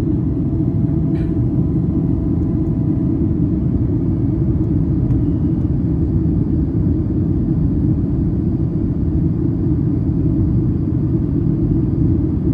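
Steady low roar of cabin noise inside a Boeing 737-800 in flight: engine and airflow rumble, even throughout, with a faint click about a second in.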